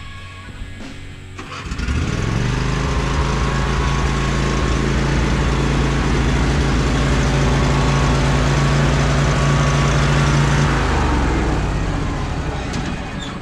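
Riding lawn mower engine running steadily; it comes in suddenly about two seconds in and fades away near the end. Background music plays underneath.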